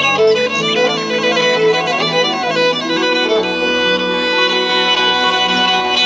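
Instrumental background music: a melody with held, wavering notes over sustained tones.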